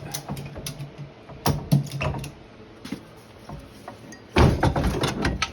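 Ratchet straps being worked to raise a UTV engine hanging from the frame: a run of sharp clicks and metal knocks, with a louder, denser rattling stretch of about a second some four and a half seconds in.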